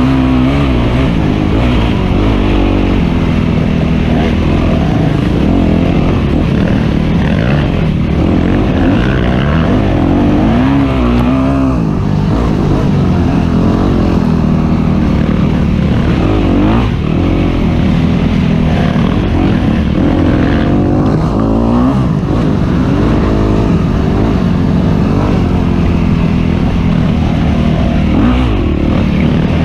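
Dirt bike engine running hard, its pitch rising and falling again and again as the throttle is opened and closed through off-road terrain.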